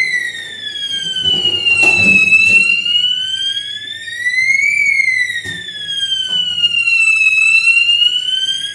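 Electronic fire alarm siren wailing, its pitch slowly rising and falling in a cycle of about five seconds. A few faint knocks come about two seconds in and again past the middle.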